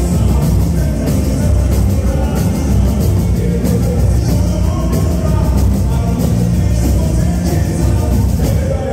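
Boi-bumbá toada music played loud: a heavy, steady beat of drums with singing over it.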